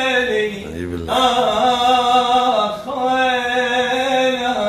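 A man singing an unaccompanied Arabic mawwal, holding long drawn-out notes, with short breaks about a second in and again near three seconds.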